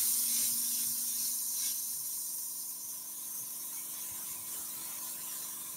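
Air hissing steadily from a marker airbrush, blowing dye from the marker's nib through a stencil. The hiss is strongest at the start and slowly weakens, with a faint steady hum beneath it.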